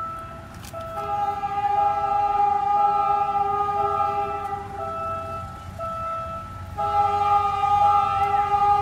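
Philippine National Railways train's horn sounding two long blasts, one from about a second in to past the middle and the next starting near the end, over a two-note tone that alternates steadily and the low rumble of the passing train.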